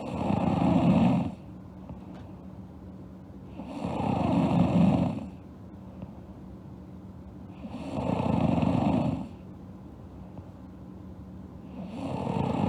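A sleeping girl snoring in a slow, even rhythm: four long snores, one about every four seconds, each lasting over a second.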